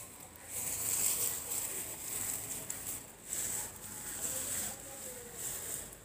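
Outdoor background noise: a high hiss that swells and fades several times.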